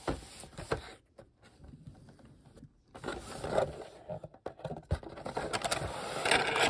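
Toy box packaging being handled: irregular scrapes, rustles and light taps, with a near-quiet stretch about a second in before the handling picks up again.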